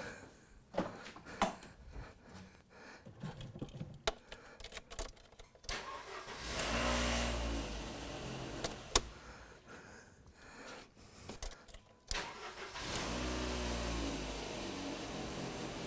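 Skoda Octavia 1.8 four-cylinder petrol engine, started for a brief test run on a new timing-belt tensioner: a few scattered clicks, then the engine starts about six seconds in and runs, drops away around ten seconds, and is started again near twelve seconds and runs steadily.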